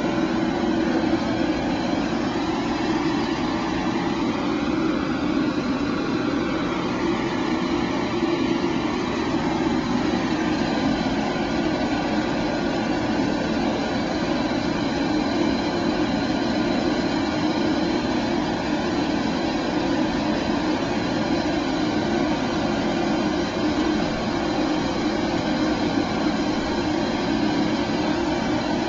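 Steady machine drone that holds one level throughout, strongest in the low-middle range, with no separate knocks or changes.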